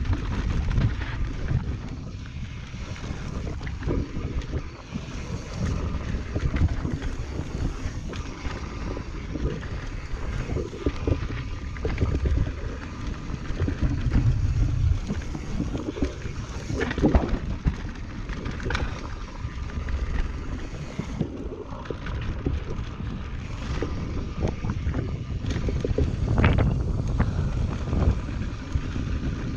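Transition Patrol carbon mountain bike descending a rough trail: wind buffeting the chest-mounted camera's microphone over the rumble of tyres on dirt and rock, with the bike's chain and frame clattering over bumps and a few harder knocks, the loudest about halfway through and near the end.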